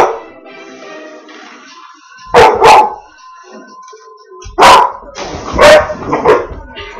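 A dog barking excitedly at a balloon: two quick barks about two and a half seconds in, then three more spread over the last two and a half seconds. Breathy blowing of a balloon being inflated by mouth is heard before the barks.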